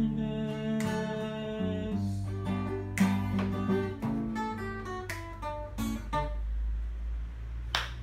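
Acoustic guitar playing a closing passage of plucked notes and strums, each note ringing out and fading, the last ones dying away about six seconds in. Hand clapping starts right at the end.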